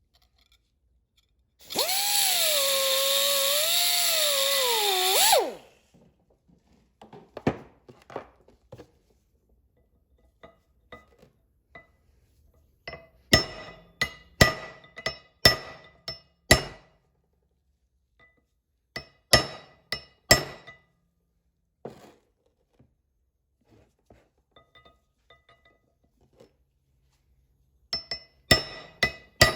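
A small cutoff wheel runs for about four seconds, cutting into the steel axle bearing race, its pitch wavering under load and dropping as it spins down. Then come a series of sharp, ringing hammer blows on steel in irregular clusters: the race being struck at the cut mark to crack it off the axle shaft.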